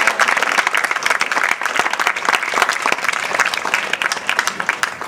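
Audience applauding: dense, loud clapping from many hands, thinning out near the end.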